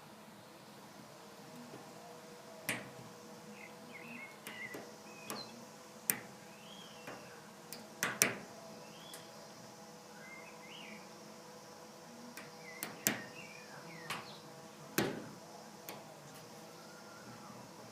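Sharp metallic clicks and taps at irregular intervals as lock picks and a tension wrench work inside a rusty brass padlock, the shackle seized and not yet released. Small birds chirp in the background over a faint steady hum.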